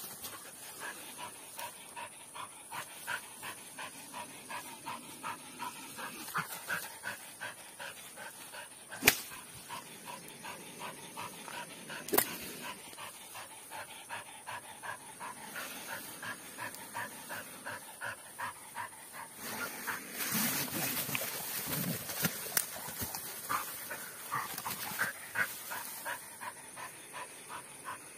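Dog panting in quick, even breaths. Two sharp clicks stand out above it, about nine and twelve seconds in.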